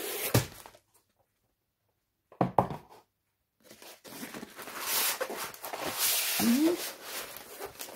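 Two short knocks on the desk, then from about four seconds in a steady crinkling rustle: a rolled diamond-painting canvas in its clear plastic film being pulled out and handled.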